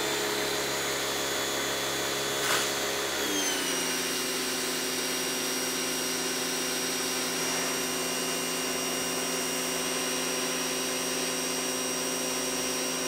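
Westinghouse ePX3000 electric pressure washer running under load, its motor and pump humming steadily while it sprays water through a 15-degree nozzle onto concrete. About three and a half seconds in, the hum drops a little in pitch and then holds steady.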